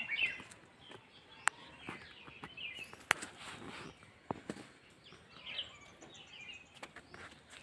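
Small birds chirping faintly and on and off over a background hiss of outdoor ambience, with a few sharp clicks about 1.5 and 3 seconds in.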